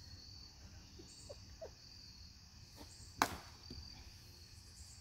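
A single sharp crack of a bat hitting a baseball off a batting tee, about three seconds in, over a steady high-pitched chorus of insects.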